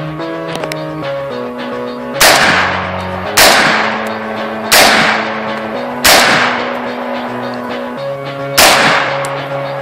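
Five single shots from a Bushmaster AR-15 semi-automatic rifle, each a sharp crack with a short fading tail, fired a little over a second apart with a longer gap before the last, over background music.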